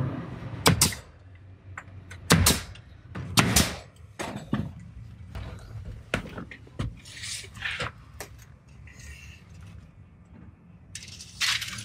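A string of sharp knocks and clacks at irregular intervals, with quieter rustling between them, from a carpenter handling tools and material at a door opening.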